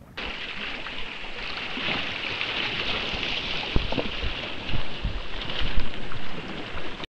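Water rushing and splashing past the hull and outrigger float of a sailing canoe in a choppy sea, with wind buffeting the camera microphone in a few heavy low thumps about four to six seconds in. The sound cuts off suddenly near the end.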